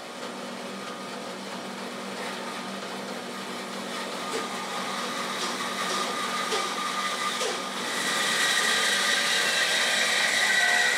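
Bandsaw running steadily. About eight seconds in, its blade starts cutting into a turned wooden cylinder held in a scroll chuck, and the sound grows louder with a higher whine.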